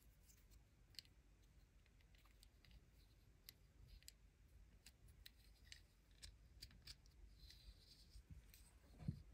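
Faint, irregular clicks and ticks of small plastic toy parts being handled as a black plastic axe accessory is fitted into a building-block figure's hand, with a low thump near the end.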